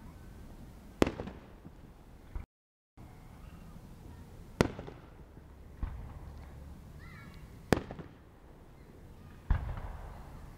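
Aerial fireworks going off: about six sharp bangs a second or two apart, each trailing off in a short echoing rumble.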